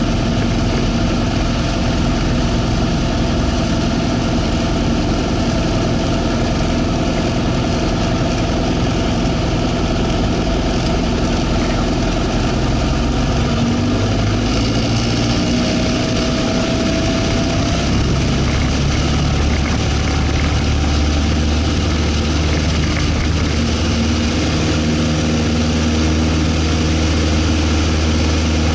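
Single-engine light plane's piston engine and propeller running, heard from inside the cockpit. A little past halfway the engine note deepens and strengthens as power comes up for the takeoff roll.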